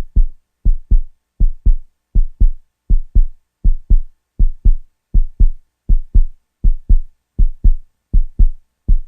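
Heartbeat sound effect: steady paired low thumps, lub-dub, at about 80 beats a minute.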